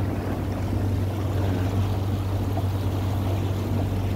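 Motor of a small aluminium boat running steadily under way, a constant low drone, with water rushing along the hull.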